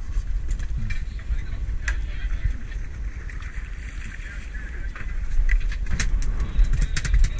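Fishing boat under way: a steady low engine and wind rumble on the microphone, with scattered sharp clicks and knocks that come thicker in the last second or so.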